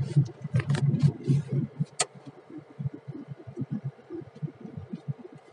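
Car engine and road noise heard from inside the cabin while driving, an uneven low rumble that is louder for the first two seconds and then drops. A few sharp clicks come in the first two seconds.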